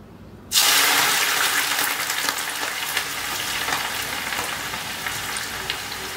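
Blanched, drained onion slices dropped into a kadhai of hot oil: a sudden loud sizzle about half a second in, which fizzes on with small crackles and slowly eases off as the onions begin to deep-fry.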